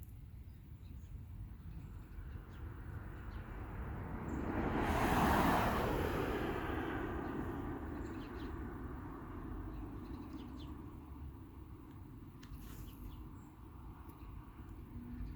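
A passing vehicle: its noise builds over a few seconds, is loudest about five seconds in, then slowly fades away, over a steady low rumble with a few faint bird chirps.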